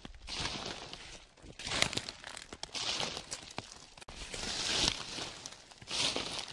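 Footsteps crunching through dry fallen autumn leaves, about five slow, crackling steps.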